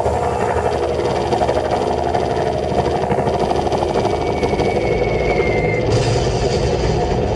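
A steady, loud engine drone, a war sound effect played over stage loudspeakers, with a low rumble beneath it and a faint high whine that slides gently down near the middle.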